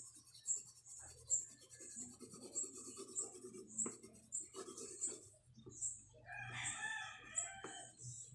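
A rooster crows once, one long call about six seconds in, over rhythmic scratching and rubbing on paper at about two strokes a second.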